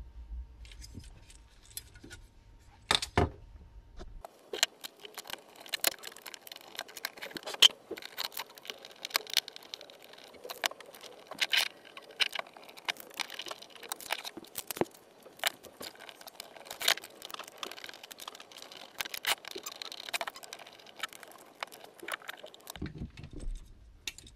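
Small metallic clicks and clinks from hands handling a metal computer radiator-and-fan assembly and its screws. A few separate clicks come first; from about four seconds in there is a dense, irregular run of clicks and rattles that stops shortly before the end.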